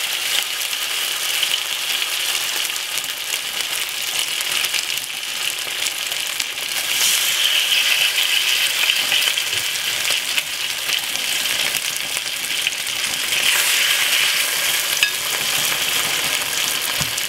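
Marinated chicken thighs sizzling in hot oil in a frying pan, a steady hiss that swells about seven seconds in and again near the end as more pieces are laid in.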